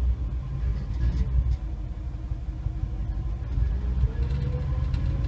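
1955 Chevy Bel Air's 265 cubic-inch V8 running cold just after starting, heard from inside the cabin: a steady, slightly uneven low rumble. A faint whine rises in pitch near the end.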